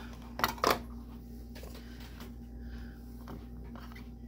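Two sharp knocks close together about half a second in as the metal top of a manual slap-press chopper is set down on a wooden cutting board, then quiet handling sounds as broccoli pieces go into the chopper's glass bowl.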